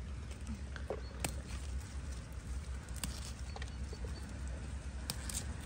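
Leaves rustling and stems snapping as small red chili peppers are picked by hand from the plants. A few scattered sharp clicks sit over a low steady rumble.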